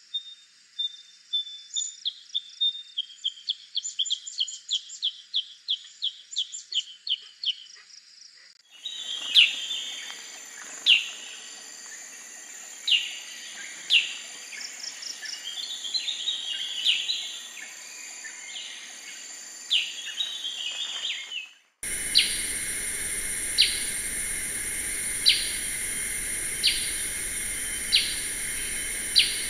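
Black-headed bulbul calls from three recordings joined end to end: first a quick run of short chirps, then sharp falling calls every second or two over a hiss, then short calls about every second and a half over a louder hiss.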